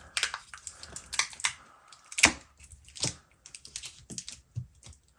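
Light, irregular clicks and taps of hands and small tools working on parts inside an open MacBook Pro, with two sharper clicks about two and three seconds in.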